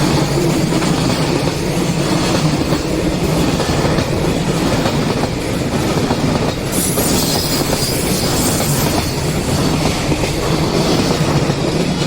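A long freight train of loaded wagons rolling past at close range, its wheels rumbling and clattering steadily on the rails.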